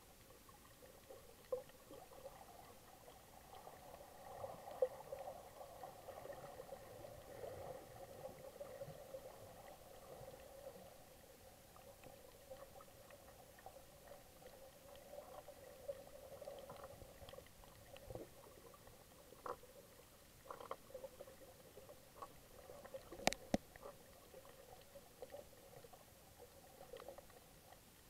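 Muffled underwater ambience picked up by a submerged camera: a faint, wavering murmur of water with scattered sharp clicks, the loudest click about 23 seconds in.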